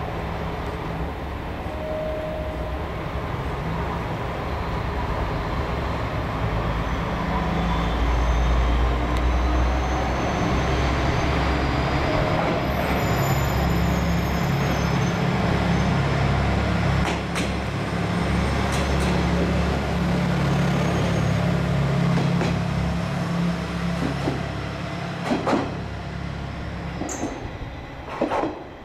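Single-car KiHa 120 diesel railcar moving slowly through the station, its diesel engine giving a deep, steady drone that grows louder about eight seconds in. A few sharp clicks sound in the second half, the loudest shortly before the end.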